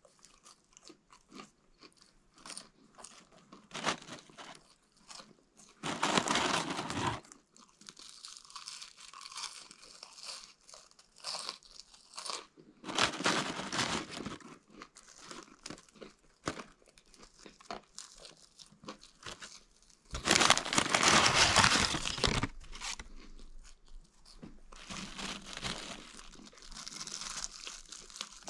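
Close-up eating sounds: fries being chewed and munched, with small crunches and clicks, and three louder rustling bursts as the paper fry bag and wrapper are handled. The last burst, near the end, is the loudest.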